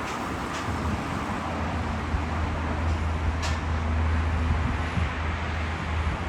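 Motor-vehicle and road-traffic noise: a steady low drone that grows stronger about a second and a half in, over an even background hiss, with a single short click about three and a half seconds in.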